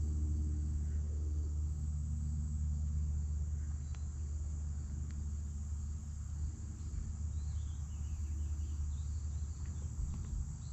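Steady high insect chorus over a constant low rumble, with a few faint ticks.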